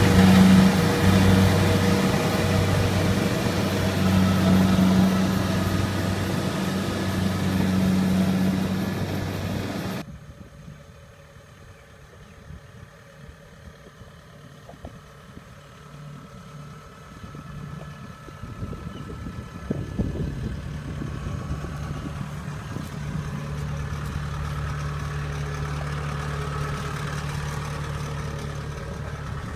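Kubota DC-70 rice combine harvester running loud and steady, with a pulsing engine hum. About ten seconds in, the sound cuts abruptly to something much quieter. A quieter, steady engine hum builds back in during the second half.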